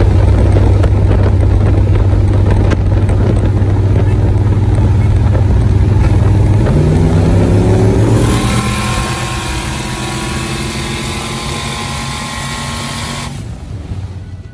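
Square-body GMC pickup's engine and exhaust running loud at highway speed, a low steady drone; about seven seconds in it revs up, the pitch rising over a second or so. Then a loud rush of wind noise takes over for about five seconds and cuts off suddenly, leaving the engine quieter underneath.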